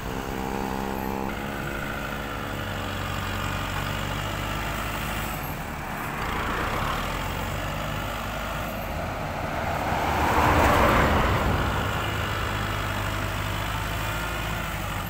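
A farm tractor's diesel engine running steadily, with road traffic passing, swelling and fading twice, about six seconds in and more loudly about ten seconds in.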